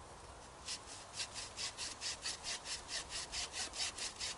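An 18 tpi hacksaw blade in a small handle sawing through a freshly cut green branch of sappy wood: quick, even strokes, about five a second, starting just under a second in.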